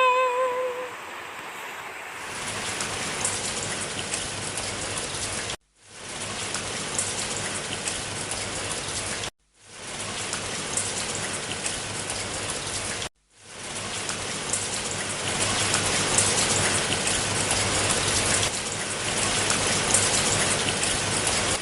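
Rain falling, an even steady hiss that drops out abruptly three times for a moment and grows a little louder toward the end. The last sung note of a song fades out at the very start.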